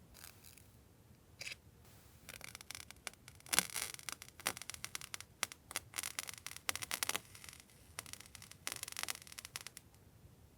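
Paper goods and their packaging being handled: a stretch of crinkling and rustling with sharp crackles, starting about two seconds in and stopping near the end.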